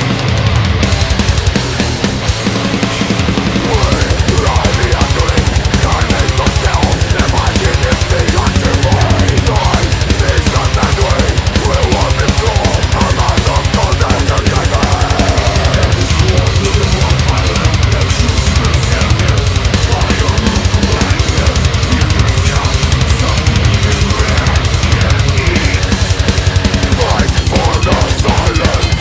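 Heavy hardcore metal song played by a full band: distorted guitar, bass and drums. About four seconds in it picks up into a fast, steady kick-drum pulse under the guitars.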